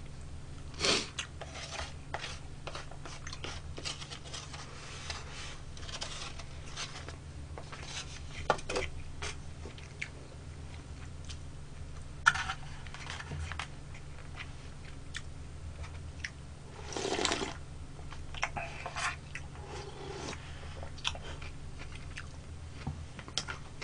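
A person eating close to the microphone: quiet chewing and mouth sounds, with scattered clicks and taps of a spoon against foam and plastic food containers and a few brief louder noises, over a steady low hum.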